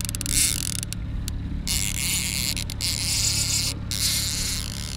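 Line-counter trolling reel's drag buzzing as a hooked king salmon strips line, in spells with brief stops, over a steady low hum from the boat's motor.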